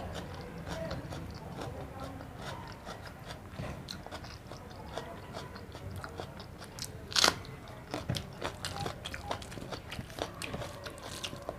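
A person chewing food close to the microphone: many small mouth clicks throughout, one louder crunch about seven seconds in, and quicker clicks after it.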